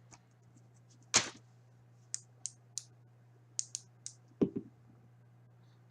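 A twelve-sided die thrown onto a tabletop: a sharp clack about a second in, a run of light clicks as it tumbles and rolls, and a duller knock a little after the middle.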